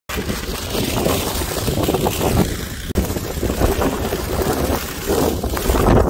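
Strong wind buffeting the microphone: a loud, gusting low rumble with a brief break about three seconds in.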